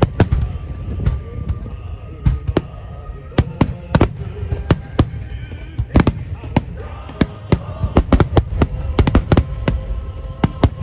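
Fireworks Starmine barrage: a rapid, irregular volley of sharp bangs and cracks from bursting shells, several a second, over a steady low rumble of overlapping booms.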